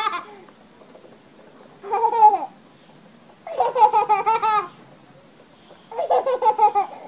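A toddler laughing with delight in repeated high-pitched bouts, each a second or less, with short pauses between.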